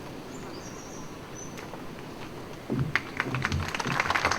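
Faint outdoor quiet with a few short bird chirps, then audience applause breaks out about three seconds in and grows.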